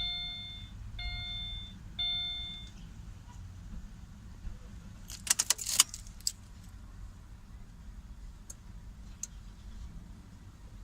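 A 2017 Subaru Forester's dashboard warning chime beeps three times, about a second apart, then keys jangle against the ignition about five seconds in. There is no starter or engine sound: the car will not crank.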